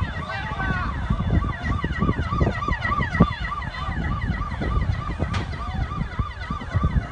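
Emergency siren wailing in quick rising-and-falling pulses, about three a second, over a constant low rumble.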